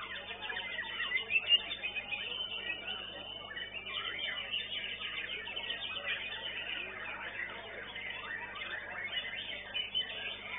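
White-rumped shamas (murai batu) singing in a contest: a dense, unbroken stream of rapid whistles, trills and chattering phrases, thin-sounding through a low-fidelity CCTV microphone.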